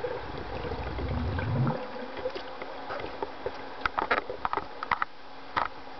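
Water moving underwater in a swimming pool, picked up on an underwater camera as a freediver's fins sweep close past it. About a second in there is a low surging whoosh that rises in pitch and cuts off. Scattered sharp clicks and ticks follow in the second half.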